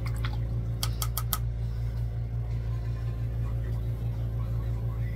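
Steady low machine hum, with four quick sharp clicks about a second in.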